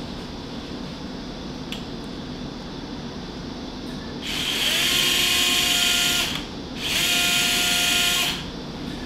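Cordless surgical power drill driving a pin into a dog's sacrum, in two runs: a steady whine starting about four seconds in for about two seconds, a brief pause, then a second run of about a second and a half.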